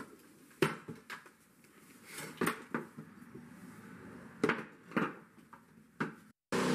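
Scattered sharp knocks and clatter of tools, among them a corded circular saw, being handled and set down on a wooden floor. A steady hiss cuts in just before the end.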